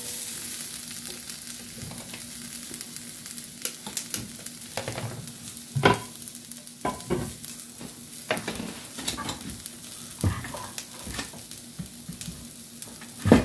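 Sliced bell peppers sizzling as they sauté in a cast-iron skillet, stirred with a utensil. Several knocks and clanks of a saucepan being handled on the stove break through the steady sizzle, the loudest about halfway through and near the end.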